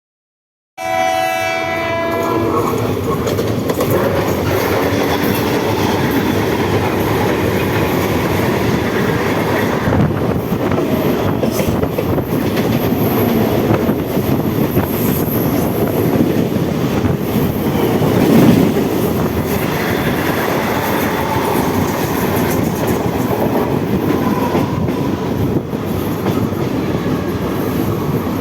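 Mumbai suburban electric local trains running at speed: a horn sounds briefly about a second in, then the steady rumble and clickety-clack of wheels over rail joints as the trains pass.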